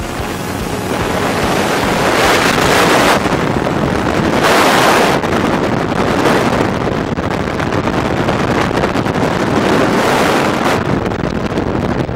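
Wind rushing over the microphone of a skydiver's camera in flight, a loud roar that swells and eases several times.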